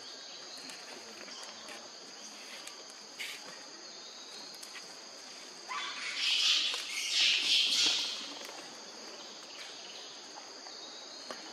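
Insects droning steadily in the forest, two high-pitched bands held without a break. About six seconds in, a louder, harsher high sound swells for around two seconds and fades.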